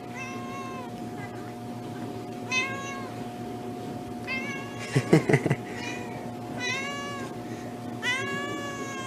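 Domestic cat meowing repeatedly: about six short meows, each rising and falling in pitch. A steady faint hum runs underneath, and a brief louder, lower sound comes about five seconds in.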